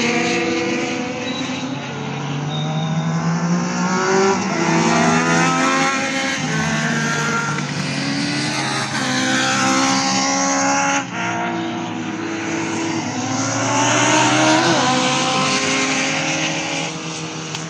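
Several Legends race cars with motorcycle engines racing past at high revs, their engine notes overlapping and rising and falling in pitch as they accelerate and change gear.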